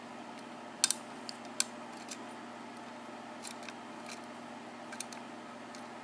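Small sharp metallic clicks of a lock pick and tension wrench working the pin tumblers of a 5-pin Manko mortise cylinder: a quick double click about a second in, another shortly after, then a few fainter ticks. A steady low hum runs under it.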